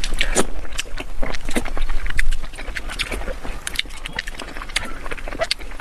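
Close-miked eating: rapid, irregular crunching, smacking and wet chewing clicks, loudest over the first two seconds or so, then lighter.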